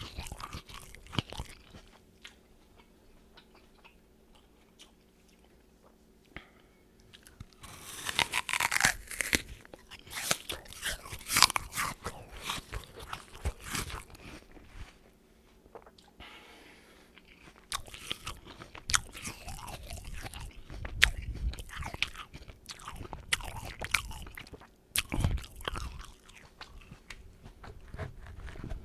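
A person biting into a crisp apple and chewing it, with crunchy, crackling bites and chewing in spells separated by quiet pauses.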